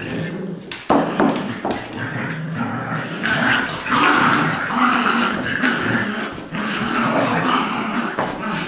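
Dogs growling continuously in play during a tug-of-war over a rope toy, a Labrador mix against a Golden Retriever puppy.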